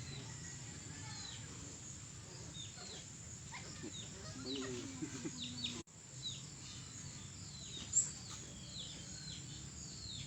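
Birds chirping: many short, quick chirps falling in pitch, repeated throughout, with one brief sharp click about eight seconds in.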